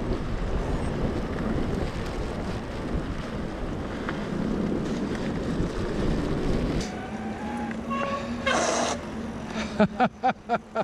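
Gusty wind buffeting the microphone during a ride, a dense low rumble that cuts out abruptly about seven seconds in. A steady low hum remains, with a short hiss and then a quick run of about five short sharp sounds near the end.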